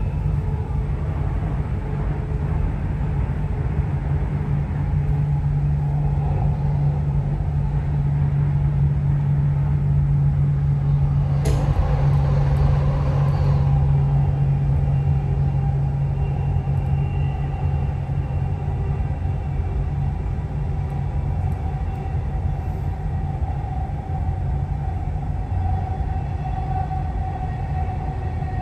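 Dubai Metro train running, heard from inside the carriage: a steady low rumble with a steady whine over it. A sharp knock comes about eleven seconds in, followed by a brief hiss.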